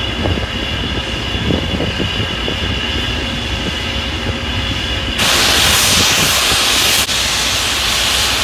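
LMS Jubilee class 4-6-0 steam locomotive 45690 Leander standing in steam, with a steady hiss and low hum. About five seconds in, a much louder, sharper steam hiss starts suddenly and keeps going.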